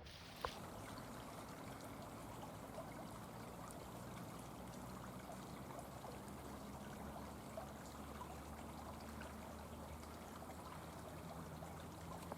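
Steady trickling, flowing water of a small stream, with a single sharp click about half a second in.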